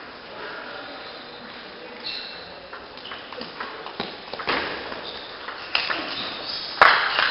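Table tennis rally in a large hall: the ball knocks sharply off the bats and table, a few hits spaced roughly half a second to a second apart, with the loudest hit near the end.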